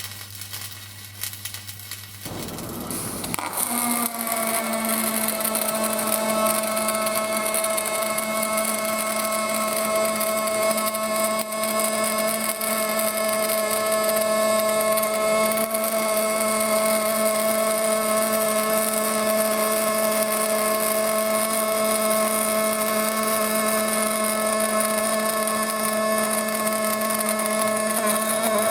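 MIG (GMAW) seam welding on thin-gauge steel: the arc crackles at first, then about three seconds in settles into a steady, high buzzing whine with a hiss that holds evenly.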